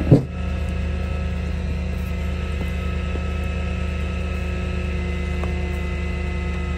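Tow truck's engine idling steadily with a low, even hum. A single short thump sounds just after the start.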